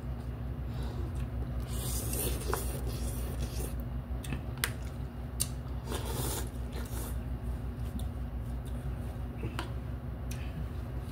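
Eating sounds: noodles slurped from a paper cup, with a few sharp clicks of utensils and a napkin rustle, over a steady low hum. The clearest slurp comes about six seconds in.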